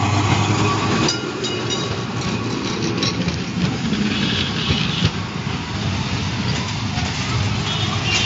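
Electric tramcar running past close by on street rails, its wheels clattering over the track with a steady low rumble. A run of sharp clicks comes about a second in.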